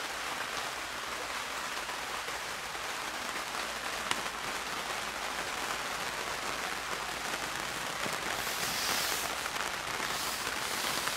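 Steady hiss of rain on the tent's fabric, heard from inside, with one faint click about four seconds in and a brief swell in the hiss near the end.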